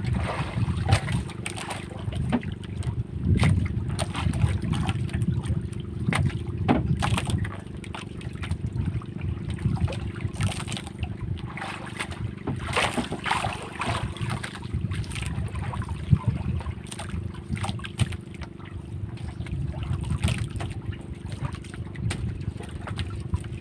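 Small fishing boat's diesel engine running steadily at speed, with splashing water and wind on the microphone.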